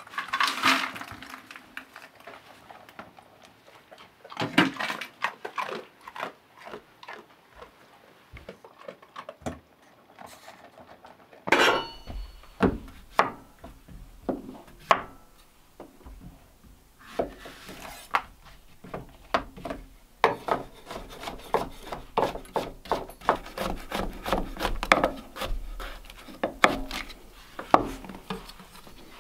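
Knife chopping zucchini on a wooden cutting board: a long run of quick, sharp taps on the wood through the last part. At the start, dry kibble rattles into a steel dog bowl, and about twelve seconds in there is a metal clank with a brief ring.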